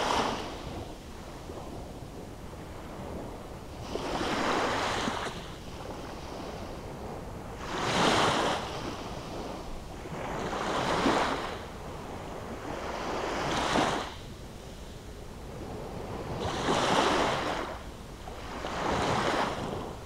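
Small sea waves breaking and washing up a sandy beach, one surge swelling and falling away about every three seconds, about seven in all.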